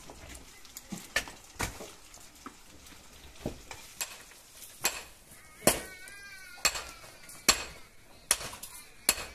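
Sharp clicks and knocks about once a second, like utensils or hard objects knocking together. About six seconds in comes a short wavering bleat.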